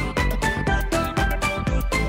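Background music with a steady beat and a bright melody.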